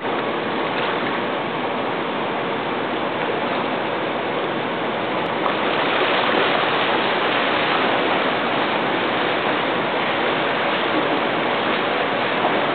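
Steady rushing water noise in an indoor swimming pool, with a swimmer's splashing strokes; it grows a little louder about five seconds in as the swimming gets under way.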